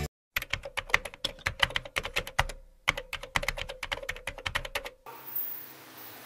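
Computer keyboard typing: a quick run of key clicks with a short pause about two and a half seconds in, stopping about five seconds in. Faint room hiss follows.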